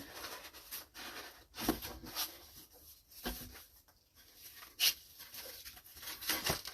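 Handling noises from unpacking gift-set items: scattered light knocks and rustles of boxes, packaging and products being picked up and set down.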